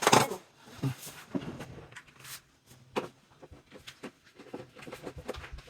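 Scattered light knocks and clicks from handling and adjusting a cabinet, a sharper knock at the very start and a few softer ones around one and a half and three seconds in.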